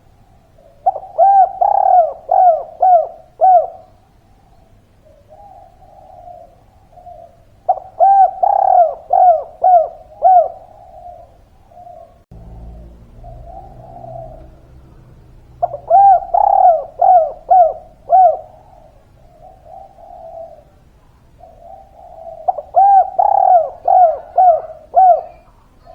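Spotted dove singing: four phrases of five or six coos each, coming about every seven seconds, with softer cooing between the phrases.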